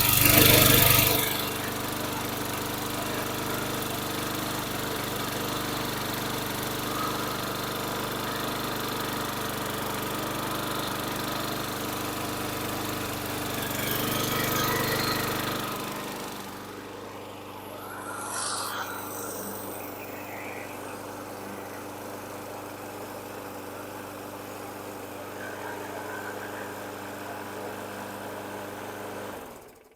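Small single-cylinder engine of a walk-behind lawn mower running steadily at its governed speed, just turned up by adding tension to the governor throttle spring. It is louder for the first second or so and again around halfway, and the sound stops abruptly near the end.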